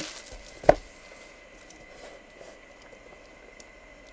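A single sharp knock about a second in as a cardboard jersey box is handled on a tabletop, followed by faint rustling and handling noise.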